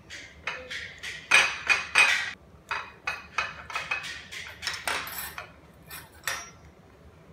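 Metal forks and a knife clinking and scraping against a ceramic plate as cake is cut and served: a quick string of short clinks and scrapes, some ringing briefly, loudest between about one and two seconds in.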